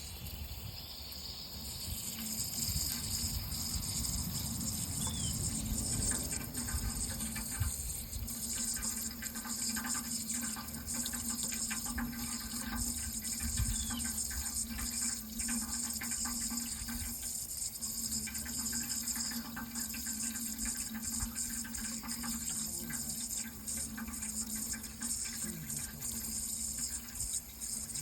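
Water running from a tap into a sink in a steady rush that swells over the first couple of seconds, with a steady low hum underneath.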